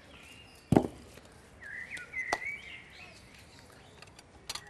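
A sharp knock just under a second in, the loudest sound. A lighter click follows about a second and a half later, and two faint clicks come near the end. Birds chirp in between.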